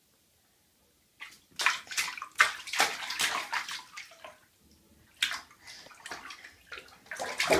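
A toddler splashing water in a bathtub. A run of splashes and sloshes starts about a second in, there is a brief lull around the middle, then the splashing picks up again.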